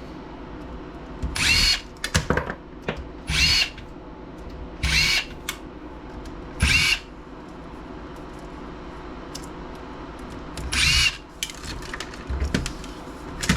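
Handheld power driver spinning in five short spurts of about half a second each, with a whining motor, as screws are run out of laptop housing parts. Small clicks and handling knocks come between the spurts.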